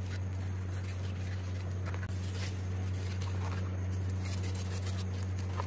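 A kitchen knife slicing through a crisp fried, breaded stuffed chicken roll on a wooden chopping board: a few faint crunches and taps of the blade. A steady low hum runs under it and is the loudest sound.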